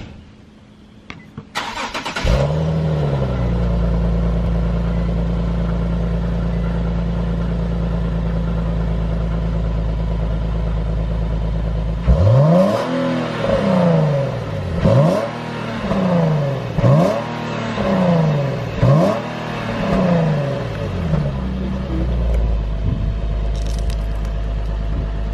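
Nissan 370Z's 3.7-litre V6 on its stock exhaust, starting about two seconds in with a short flare and settling into a steady idle. It is then revved in about five quick blips, roughly two seconds apart, before it drops back to idle.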